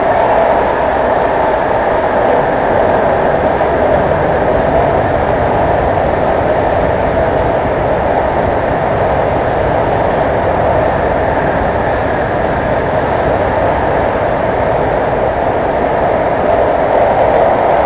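Steady running noise of a Santiago Metro AS-14 train moving at speed through a tunnel, heard from inside the car.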